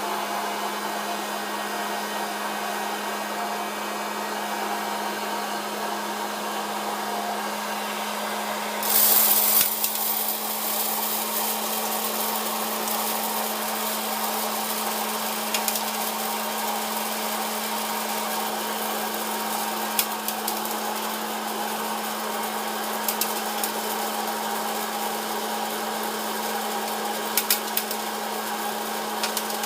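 Electric hot-air popcorn popper running, its fan giving a steady blowing whir with a low hum. About nine seconds in there is a loud burst of hissing noise lasting about a second, and after that a few single sharp pops every few seconds, the first kernels starting to pop.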